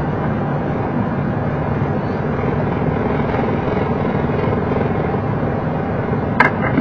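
Steady cockpit noise of a Boeing 737 taxiing after landing: engines at idle and a constant ventilation hum, with one sharp click a little over six seconds in.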